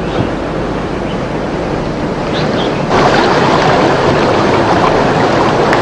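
Mountain stream rushing over rocks: a steady noise of flowing water that turns louder and brighter about three seconds in.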